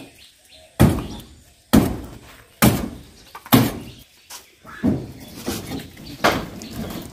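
Blade chopping into the wood of a fallen tree: a steady run of heavy strikes, about one a second, with a short pause about four seconds in.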